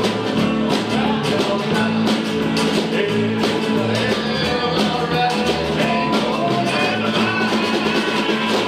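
Live rock and roll music with guitar and a steady beat.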